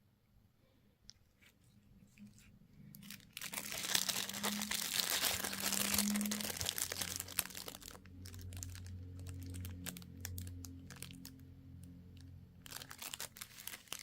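Candy packaging crinkling and tearing as it is opened. A dense stretch of crackling starts a few seconds in, eases off after about four seconds, and comes back in short crackles near the end.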